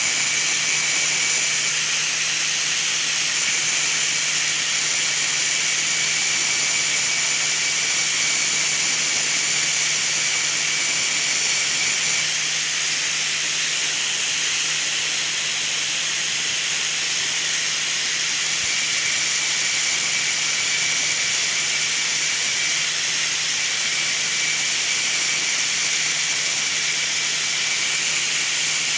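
Grinder running steadily, a loud, even high-pitched hiss over a low hum, as it grinds the galled first threads off a bolt end to put a taper on it.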